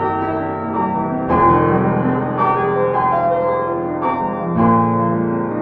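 Piano-led pop song playing without vocals, its chords changing every second or so.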